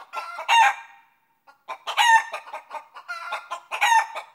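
Chicken clucking: runs of quick clucks broken by three longer, louder calls, with a short pause near the first second.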